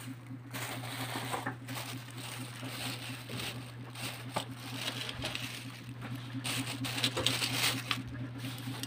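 Clear plastic carry-out bag crinkling and rustling as it is handled right against the microphone, in uneven spells, over a steady low hum.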